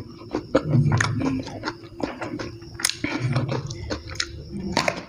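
Close-miked chewing of a mouthful of food, with many short crisp clicks. Near the end he bites into a raw round green eggplant.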